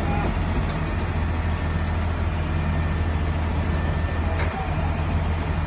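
Truck-mounted crane's diesel engine running at a steady pitch while it holds a suspended floating dock, with a few faint ticks over it.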